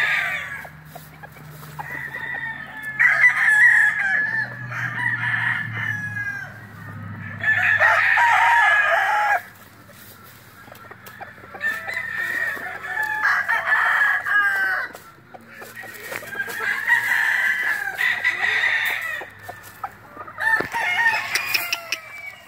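Chickens calling again and again, about eight times: rooster crows and hen clucking, each call lasting a second or two, the longest crow about eight seconds in.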